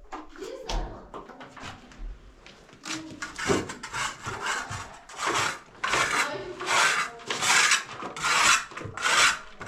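A hand tool being worked back and forth on wood, with rhythmic rasping strokes, about three strokes every two seconds, that grow louder and more regular from about a third of the way in. The first few seconds hold scattered light knocks and clicks.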